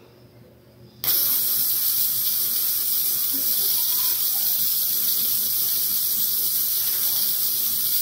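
High-voltage electric arc from a flyback transformer charged through a microwave-oven capacitor, jumping between two bare wire tips. It starts suddenly about a second in as a steady, high-pitched hiss that holds evenly.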